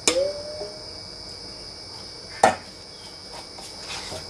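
A steel bowl clinks with a short metallic ring as it is tipped to pour purée, then a sharp knock about two and a half seconds in and a few light spoon clicks as the gram-flour mix is stirred in a plastic bowl. A steady high-pitched whine runs underneath.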